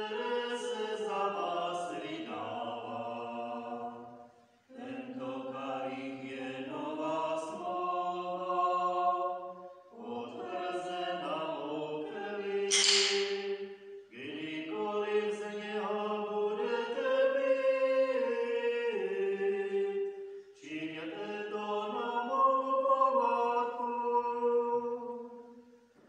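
Church singers performing a communion hymn, voices singing in phrases of about four to six seconds with short breaths between.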